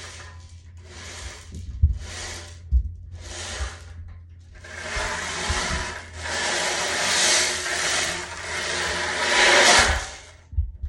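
Ocean drum: beads rolling across the drumhead in four short swishes, then one long continuous roll of several seconds that stops abruptly near the end. Dull low thumps sound twice beneath, about two and three seconds in.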